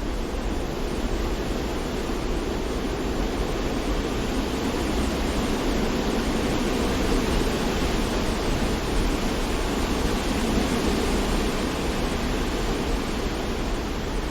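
Steady rushing noise of wind and sea surf, an even hiss with no separate waves or gusts standing out.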